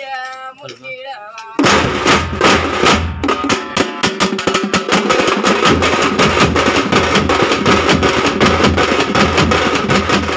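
A voice singing, then about a second and a half in a loud Tamil thappu drum ensemble starts up: large stick-beaten drums and smaller hand drums playing a fast, dense rhythm with heavy low thumps.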